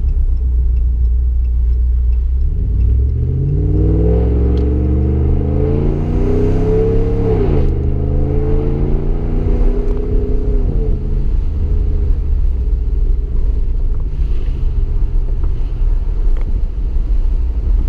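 5.7-litre Hemi V8 of a 2015 Ram 1500 with a muffler delete and Y-pipe, heard from inside the cab: a low exhaust drone at cruise, then about two and a half seconds in the engine revs up under acceleration. Near eight seconds the pitch drops sharply at an upshift, climbs again briefly, and settles back to the low cruising drone about eleven seconds in.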